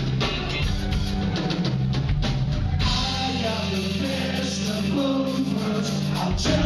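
Rock band playing live: drum kit, electric guitar and bass guitar, with a voice singing over them.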